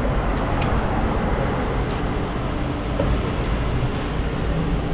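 Steady rumble of city street traffic heard from a moving bicycle, with a sharp click about half a second in.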